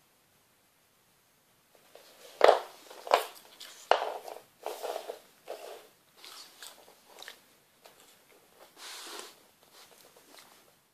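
Leather belt with a metal buckle being handled: a few sharp clicks and knocks from about two to four seconds in, then intermittent rustling.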